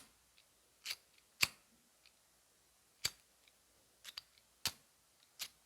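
A gas lighter that is out of fuel being struck over and over: sharp clicks of the igniter at uneven intervals, about eight of them, with no flame catching.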